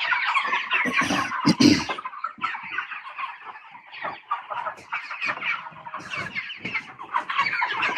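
A large flock of Cornish Cross broiler chickens, close to 300 birds, clucking and peeping together in a dense, continuous chatter of many overlapping calls. A couple of dull thumps sound about one to two seconds in.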